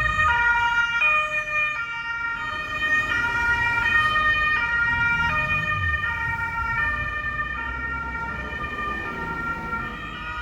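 Two-tone emergency-vehicle siren alternating steadily between a high and a low pitch about every three quarters of a second, over a low rumble of road traffic.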